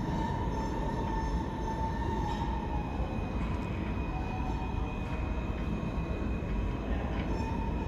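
New York City R160-series subway train rumbling away along a curved track, with steady high-pitched squealing from the wheels on the curve.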